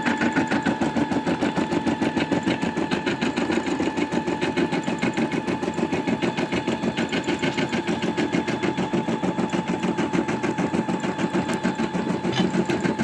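Brother Innov-is M280D embroidery machine running, its needle stitching in a fast, even rhythm over a steady motor whine.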